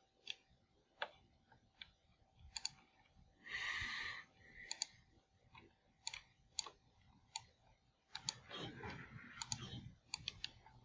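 Quiet, scattered computer mouse clicks, irregular sharp clicks as the pointer clicks and drags on screen. A short noisy hiss comes about three and a half seconds in, and a longer stretch of muffled noise runs from about eight to ten seconds.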